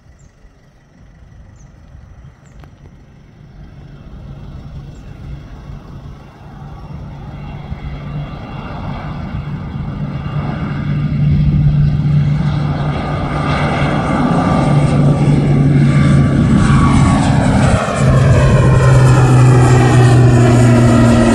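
ATR 72-500 twin turboprop (Pratt & Whitney PW127 engines) at takeoff power: a steady low propeller drone under a rushing engine noise, growing from faint to loud over the first dozen seconds as the aircraft rolls, lifts off and climbs past, then staying loud.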